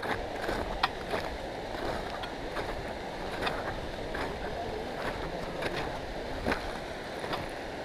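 Footsteps crunching up hard, early-morning snow with trekking poles planting, about one sharp crunch a second, over a steady rush of wind on the microphone.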